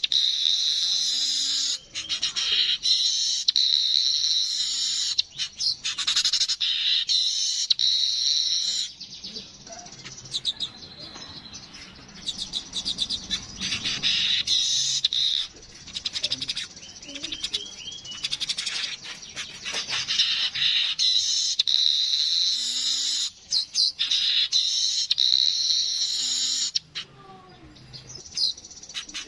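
Yellow-headed weaver (manyar) birds giving their chattering, buzzy song: bursts of rapid, high-pitched chatter lasting several seconds, broken by quieter stretches of softer calls.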